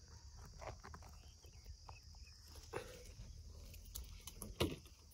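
A few scattered soft footsteps on dry earth, the loudest about four and a half seconds in, over a low wind rumble and a steady high hiss.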